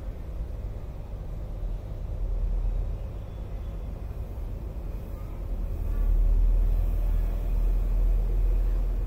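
Low, steady rumble with no clear pitch, swelling louder about six seconds in and easing off near the end.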